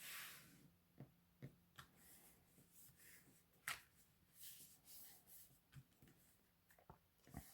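Quiet handling of cardstock on a work surface: scattered light taps and clicks with short soft rustles of paper.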